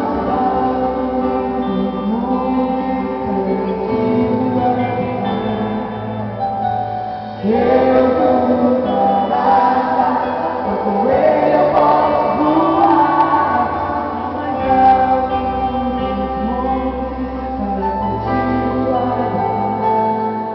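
Gospel band performing a song: voices singing a melody over instrumental accompaniment with sustained bass notes that change every few seconds.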